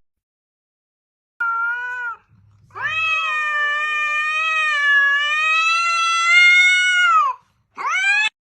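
A cat meowing: a short meow about a second and a half in, then one long drawn-out yowl lasting about four seconds, then a short rising meow near the end.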